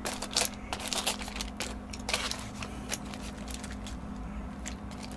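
Chopsticks stirring sauce-soaked fried pork in a foil takeout tray: irregular clicks and crinkles from the foil and chopsticks, with a few louder clacks.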